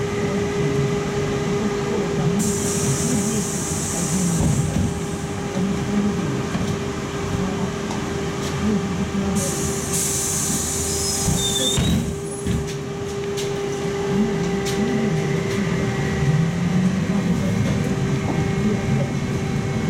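Interior of a Trolza-5265.00 Megapolis trolleybus on the move: low rumble from the road and running gear under a steady, even whine. Two hissing bursts a couple of seconds long come in, about two seconds and about ten seconds in.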